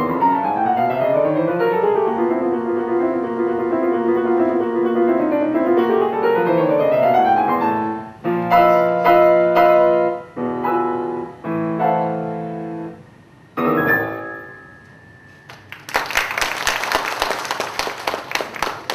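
Steinway B211 grand piano played fast: quick runs that move apart and back together, then a string of separate chords and a final chord left to ring and die away. About three seconds before the end, audience applause breaks out.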